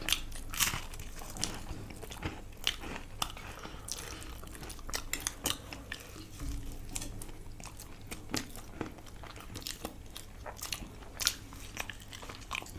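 Close-up eating sounds: a person biting and chewing crunchy food, with many sharp, irregular crunches and mouth clicks.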